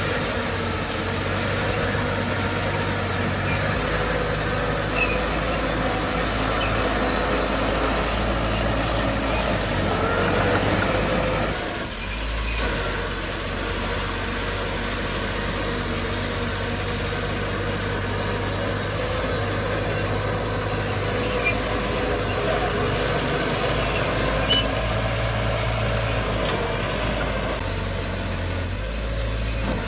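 Diesel engine of heavy earthmoving machinery running steadily under work, with a brief rise in pitch about ten seconds in and a short dip in level soon after.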